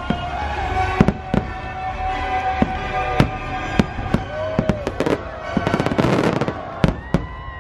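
Aerial fireworks going off, with sharp bangs at irregular intervals and a dense burst of crackling about six seconds in, over steady show music.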